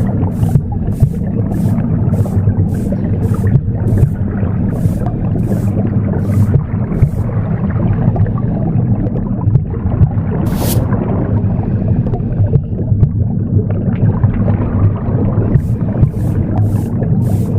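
Womb sound, a steady low whooshing rumble, mixed with broom sweeping: short swishing strokes about two a second that stop for several seconds in the middle, save for one sharper stroke, and then start again near the end.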